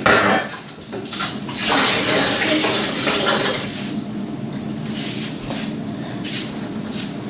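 Water from a tap running into a small pan and splashing as the pan is rinsed out, louder for a couple of seconds about one and a half seconds in.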